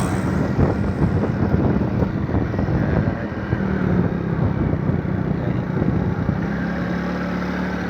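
A vehicle engine running at a steady pitch while on the move, over a dense rush of road and wind noise.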